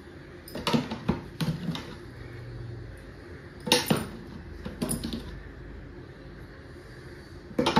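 Kitchen dishes and utensils handled while breakfast is served up: a few separate clinks and knocks, the loudest about four seconds in.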